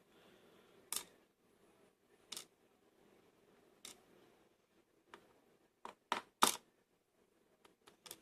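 Small sharp metallic clicks and taps from handling a disassembled lock cylinder and its pins, spread out one every second or so, the loudest about six and a half seconds in.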